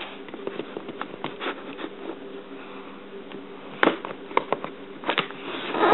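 Small pocket-knife blade cutting and scraping packing tape on a cardboard box: scattered scratches and small clicks, with two sharper snaps about four and five seconds in.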